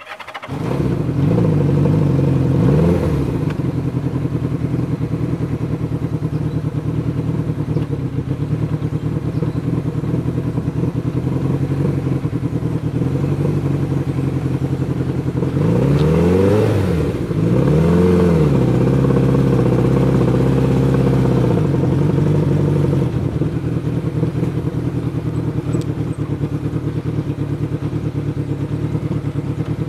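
Motorcycle engine running, coming in suddenly at the start. Its pitch swings up and down briefly soon after, and again about halfway through, before it settles back to a steady run.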